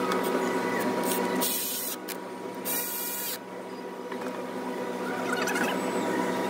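Steady mechanical hum with a thin high whine, broken by two short hisses about a second and a half and just under three seconds in.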